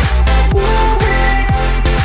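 Electronic dance music with a steady kick-drum beat and a held synth note above it.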